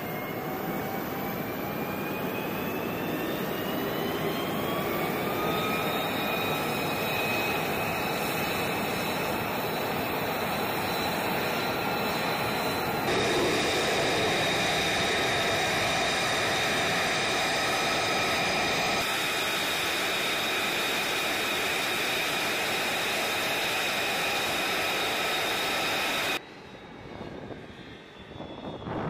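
F-35B Lightning II's jet engine running, its turbine whine rising in pitch over the first few seconds and then holding steady over the roar. Near the end the sound drops suddenly to a much quieter rush of wind.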